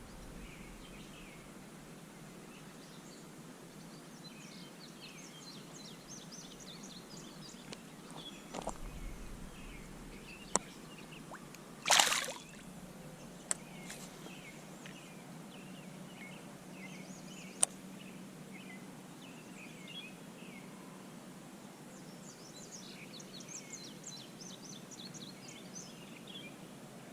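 Quiet outdoor ambience with small birds chirping on and off. A few sharp clicks are heard, and a brief loud rush comes about twelve seconds in.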